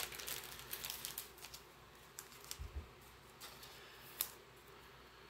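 A trading card being slid into a clear plastic card sleeve by hand: plastic rustling and crinkling for about the first second and a half, then scattered light clicks and taps, a soft thump near three seconds, and one sharp click a little after four seconds.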